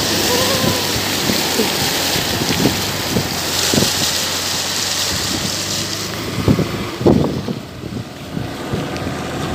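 Floodwater rushing and spraying against a motorcycle wading through it, with its exhaust silencer under water. The rush eases about six seconds in, with a couple of splashes near seven seconds.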